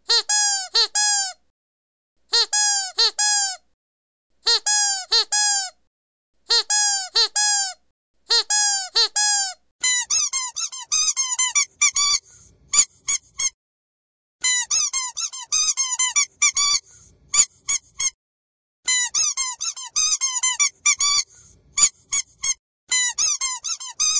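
Squeaky dog toys squeezed over and over. At first, short bursts of three or four squeaks come about every two seconds, each squeak bending in pitch. About ten seconds in, a higher-pitched squeaky toy takes over, squeezed faster, with sharp clicks among the squeaks.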